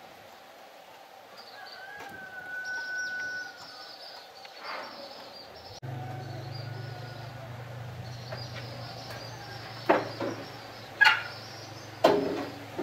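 Birds chirping over a high steady hiss, with one held whistle-like note early on. A low steady hum comes on suddenly about halfway through, and three sharp knocks sound about a second apart near the end.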